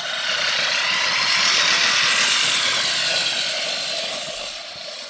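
Lawn mower running and cutting grass as it passes close by: its whirring swells to a peak about two seconds in, then fades away.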